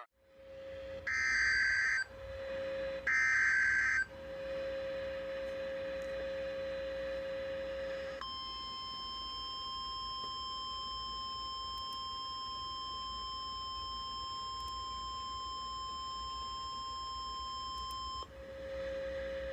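NOAA Weather Radio Emergency Alert System activation: two short bursts of digital SAME header data about a second apart, then the steady single-pitch 1050 Hz warning alarm tone held for about ten seconds, which signals that a warning is about to be read. A lower steady tone sounds in the gaps between the bursts and before and after the alarm.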